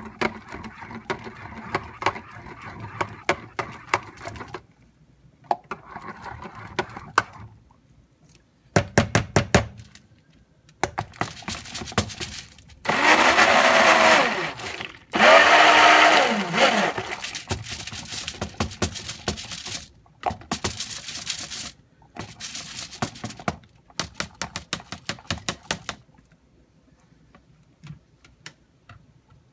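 Stick blender mixing cold process soap batter in short bursts. It is loudest in two runs about halfway through, where its motor pitch rises and falls as it works the thickening batter. Between bursts there are clicks and knocks against the container.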